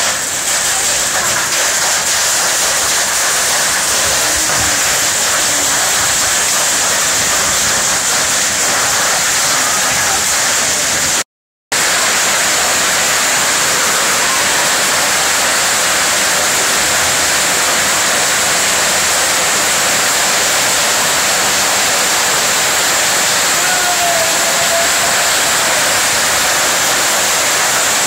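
Heavy storm rain pouring down, a loud, steady, dense hiss. It cuts out completely for a fraction of a second about eleven seconds in.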